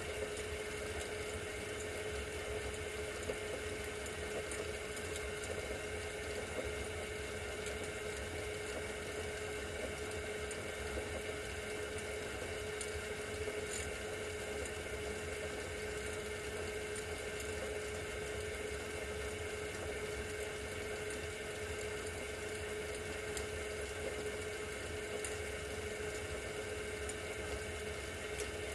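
Glassblowing hand torch flame hissing steadily on a glass tube turning in a glass lathe, with a steady mid-pitched hum underneath.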